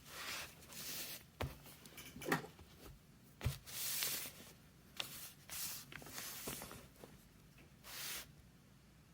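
Chinese calligraphy brush sweeping across paper in a series of short strokes, about seven soft swishes, with a few light taps and clicks in between.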